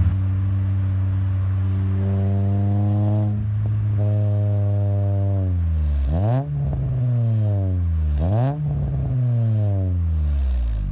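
6th-generation Honda Accord's aftermarket cat-back exhaust, revved by the throttle. The engine idles, is held at raised revs twice, then gives two quick sharp blips about two seconds apart, each sliding back down to idle.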